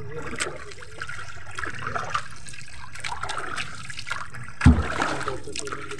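Water trickling and dripping as a fishing net is hauled up out of the sea by hand into a small boat, with a single dull thump a little past halfway.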